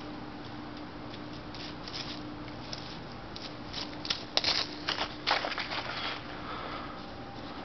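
Dry fallen leaves crunching and crackling underfoot in an irregular cluster of crisp rustles, loudest about four to five and a half seconds in, over a faint steady hum.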